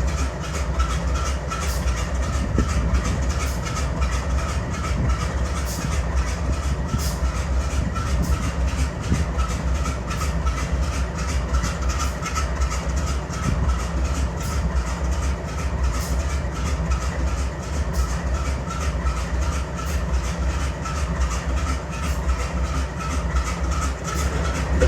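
GE C44-9W diesel-electric locomotive's 16-cylinder diesel idling with a steady rumble and a fast, uneven pulsing beat: the engine is misfiring and running unwell.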